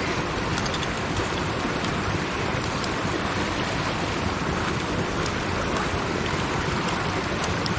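Creek water flowing steadily: an even, unbroken rush of running water.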